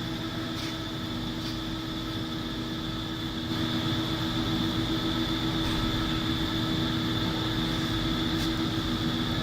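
Steady hum of running machinery with a constant tone, getting slightly louder about three and a half seconds in, with a few faint clicks.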